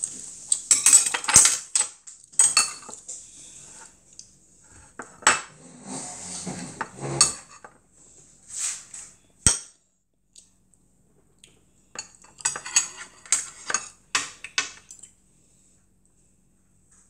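Metal chopsticks and a metal spoon clinking and scraping against ceramic bowls and plates in scattered runs of sharp taps.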